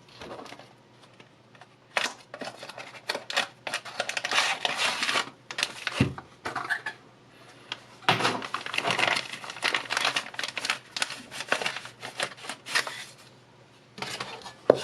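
Packaging being handled and opened, crinkling and rustling in two long stretches, with a single thump about six seconds in.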